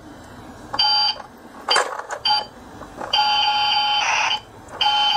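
Battery-operated toy bread toaster playing its electronic sound effect: a few short beeps, then a longer steady tone about three seconds in and another near the end.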